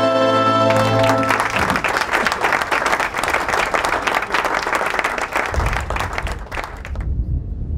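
Music fades out as a crowd breaks into applause about a second in; the clapping runs for several seconds and cuts off abruptly near the end. A low drum rumble comes in under it in the last couple of seconds.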